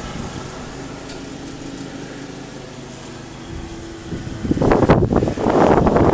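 Riding lawn mower engine running steadily. About four and a half seconds in, wind hits the microphone with a loud, uneven rumble that drowns the engine out.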